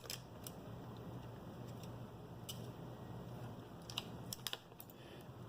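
Faint, scattered clicks and taps of computer parts being handled, a few of them close together near the end, over a steady low hiss.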